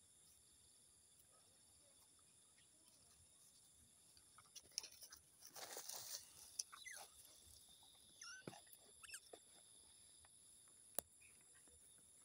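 Near silence over a faint, steady high-pitched insect chorus. About halfway through there is a few-second burst of rustling and scuffing, as of footsteps moving over dry dirt and grass, followed by a few short chirps and clicks.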